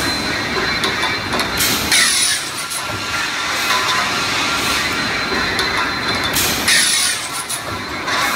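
Flying friction saw on a tube mill cutting 48 mm OD, 2.8 mm wall pipe on the fly, twice, about four and a half seconds apart. Each cut is a harsh, high screech lasting about half a second that falls away in pitch, over the steady running noise of the mill.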